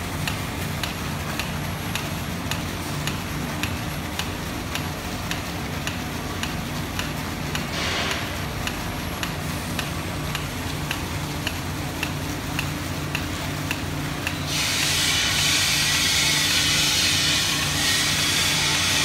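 Treated water splashing from an outlet pipe into a tank, over a steady low machinery hum and a faint regular tick about twice a second. About three-quarters of the way through, the splashing hiss grows much louder.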